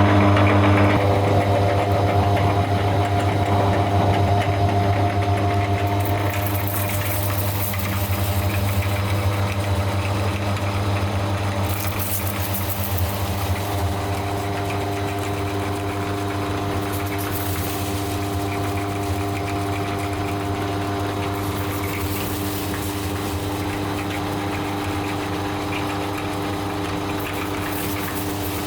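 Electric meat grinder motor running steadily with a low hum while grinding Kurkure corn snacks, with crackly stretches now and then as the snacks are crushed.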